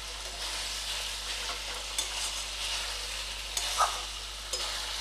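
Pumpkin and potato frying in oil in a kadai without water, sizzling steadily while a spatula stirs them, with occasional light scrapes and taps against the pan.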